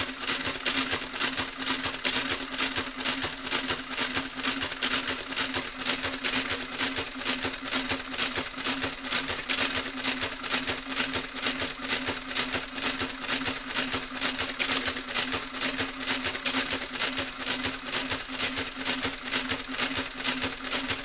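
Olivetti Divisumma 14 electromechanical printing calculator running continuously: a steady hum under a fast, even clatter of its mechanism cycling, about three to four strokes a second, as it prints rows of figures onto its paper tape.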